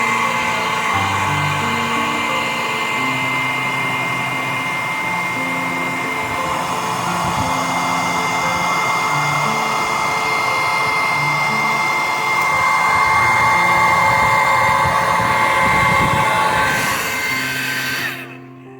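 Hair dryer blowing steadily with a whining motor tone, used to dry off a frozen refrigerator ice maker; it is switched off near the end. Faint music plays underneath.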